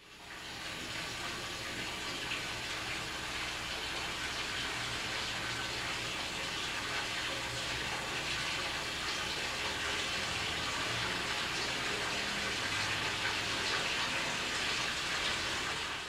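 Water running steadily from a bathroom tap.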